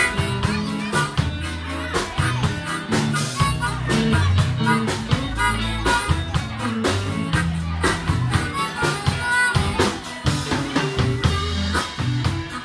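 Live blues band: a harmonica cupped against a vocal microphone plays a wailing lead over electric guitars and a Pearl drum kit keeping a steady beat.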